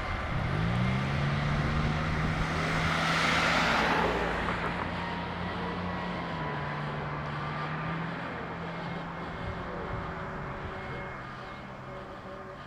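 Fire engine accelerating past, its engine note rising and then holding steady. The rush of engine and tyre noise swells to its loudest about three to four seconds in, then slowly fades as the truck moves away.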